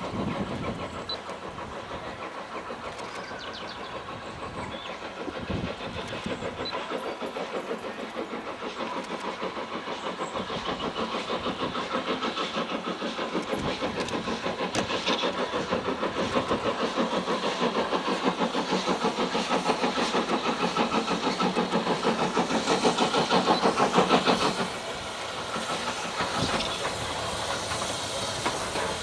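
LSWR M7 class 0-4-4 tank steam locomotive chuffing hard as it pulls its coaches, a fast, even beat of exhaust blasts growing louder as it approaches. About three-quarters of the way through the sound drops suddenly to a quieter level and the chuffing carries on.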